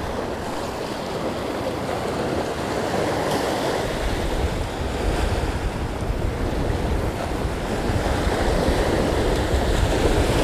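Surf washing in over sand and rocks, a steady rushing of breaking waves, with wind buffeting the microphone that adds a heavier low rumble from about four seconds in.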